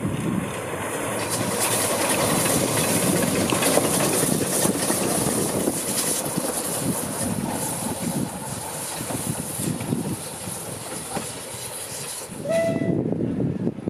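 Small Hunslet narrow-gauge steam locomotives running past close by, with a steady rush of exhaust and wheel noise that is loudest a few seconds in. A brief whistle toot comes near the end.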